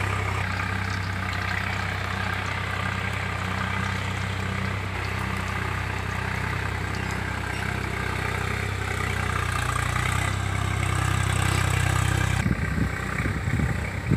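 An engine running steadily at idle, a low even hum. About two seconds before the end it gives way to wind buffeting the microphone.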